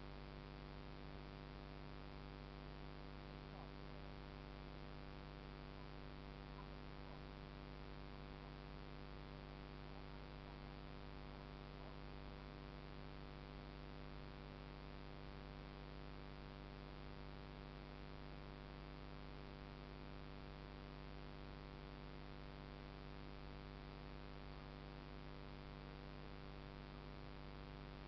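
Faint, steady electrical hum with an even hiss behind it, unchanging throughout.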